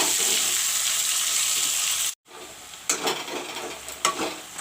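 Chopped onions sizzling as they fry in hot mustard oil with whole spices. About two seconds in the sound cuts out for a moment and comes back quieter, with a couple of sharp knocks of the stirring spoon against the pan.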